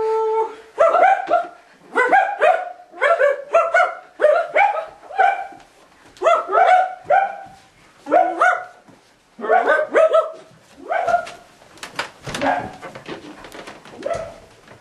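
Repeated dog-like barking: short pitched barks in quick runs of two to four, about two a second, with a held howl-like note at the very start, thinning out near the end.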